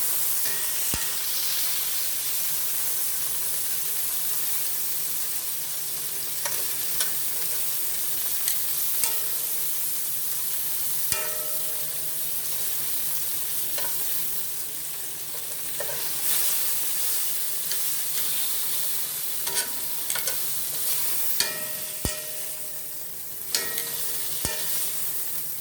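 Chicken thighs sizzling steadily in hot olive oil in a frying pan. Occasional sharp clicks of a utensil against the pan come through as the pieces are handled.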